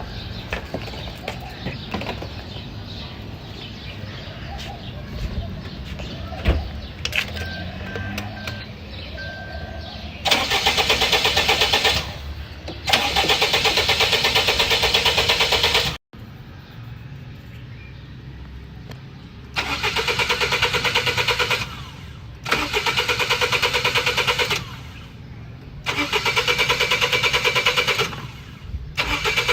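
Car engine cranking on its starter motor without catching, in about six bursts of two to three seconds each starting about ten seconds in, with short pauses between attempts: a hard start, the engine failing to fire.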